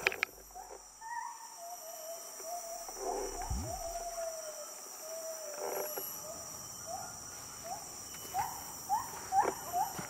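A forest bird calling in short rising whistled notes, coming faster near the end and closing on one longer held note, over a steady high-pitched drone of insects.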